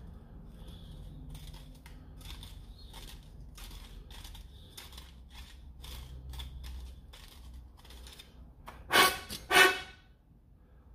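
A hand tool scraping in short, repeated strokes at the end of an aluminium blaster barrel, chamfering its unchamfered edge. Near the end come two loud, short rushes of noise about half a second apart.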